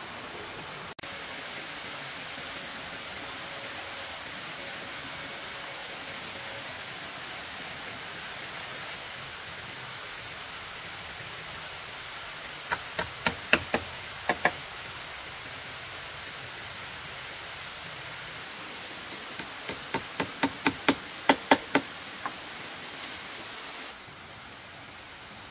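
Sharp knocking tool strikes in two runs over a steady hiss: about seven knocks near the middle, then about ten in quicker succession, growing louder, later on.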